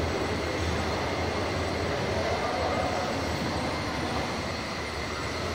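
Steady rumble and hiss of a model railway exhibition hall with a constant low hum, the kind of running noise model trains make on a layout; no single event stands out.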